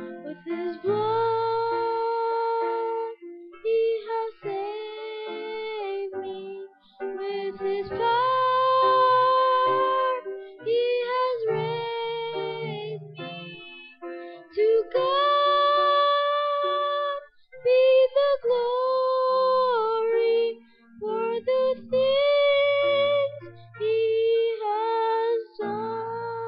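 A boy singing a gospel hymn solo into a microphone, his unbroken voice holding long notes in phrases of a few seconds, over low sustained accompaniment notes.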